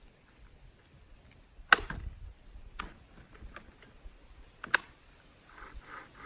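A few sharp, isolated knocks and clicks against a quiet background, the loudest just under two seconds in and another near five seconds in.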